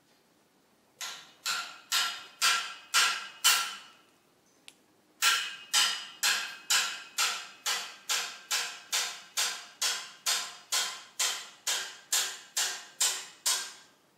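A series of sharp, ringing knocks, like hammer blows: six at about two a second, a pause, then about nineteen more at the same steady pace.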